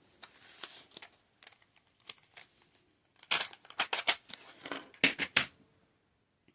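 Woodless graphite pencils being picked out and handled: sharp clicks and rattles, with a single click about two seconds in and then a close run of them from about three to five and a half seconds in.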